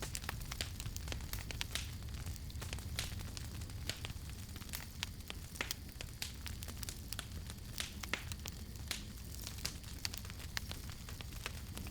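Wood campfire burning and crackling, with frequent irregular sharp pops and snaps over a steady low rumble of the flames.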